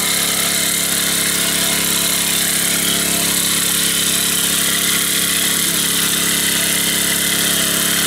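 A small engine running steadily at an even speed, with no change in pitch.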